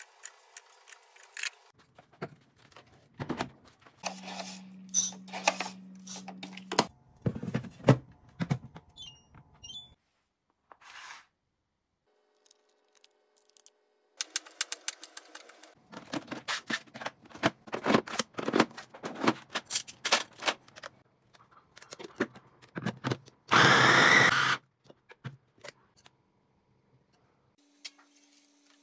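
A run of short clicks, taps and plastic knocks from household gadgets being handled: an egg drawer being slid out and plugs being fitted into a power strip. About two-thirds of the way through there is one loud hiss lasting about a second.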